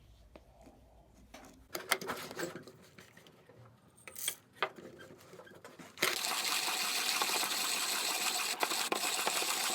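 Early-1950s Zassenhaus hand-cranked conical burr coffee grinder, set to its finest setting, grinding coffee beans. A few scattered clicks and cracks come first; about six seconds in, a steady, dense grinding noise starts abruptly and keeps going.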